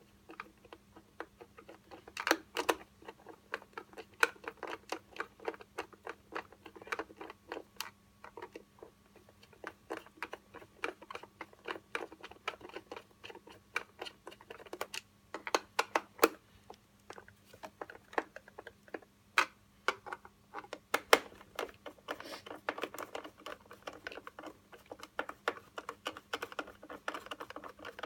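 Screwdriver turning screws in a hoverboard's plastic shell: a long run of quick, irregular clicks and ticks, busiest near the end, over a faint steady hum.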